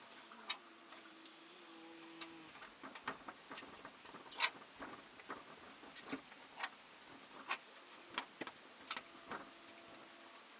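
Light, irregularly spaced clicks and taps, the sharpest about four and a half seconds in, over a faint steady hum.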